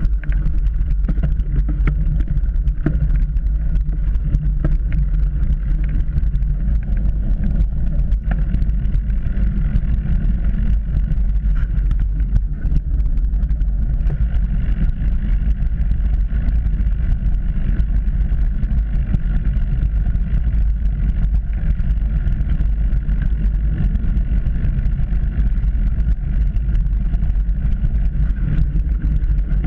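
Trek Remedy 8 mountain bike riding over grass and dirt on knobby tyres, heard through a GoPro housing: a loud, steady low rumble of tyres and rushing air, with scattered knocks and rattles from bumps.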